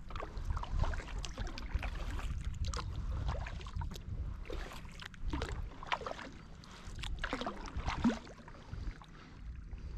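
Kayak paddling: water splashing and sloshing with irregular paddle-stroke splashes, over a steady low rumble.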